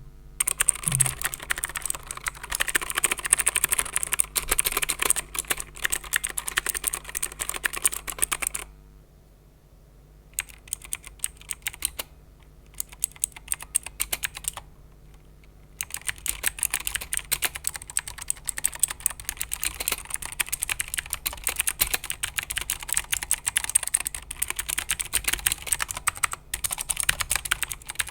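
Typing on a Rapoo Vpro V500 Alloy budget keyboard: fast, irregular key clicks and clacks. There is a pause of about seven seconds in the middle, with only a few faint keystrokes, before steady typing resumes.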